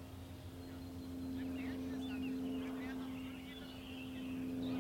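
Birds chirping in short rising and falling calls over a steady low hum.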